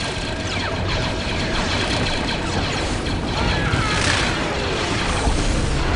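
Animated battle soundtrack: dense sci-fi blaster fire, many short zaps falling in pitch, over a low rumble of battle and a music score. A brighter crash comes about four seconds in.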